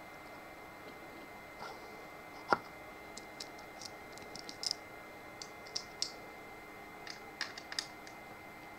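Scattered light clicks and taps, irregular and a few per second, with one sharper knock about two and a half seconds in, over a faint steady high-pitched tone.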